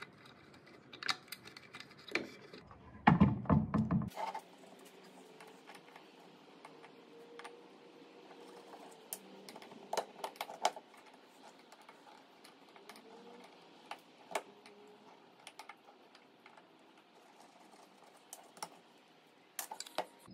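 Scattered small metal clicks and taps of a screwdriver and pliers working painted-over screws and hinges loose from wooden furniture parts. A louder burst of clattering comes about three seconds in.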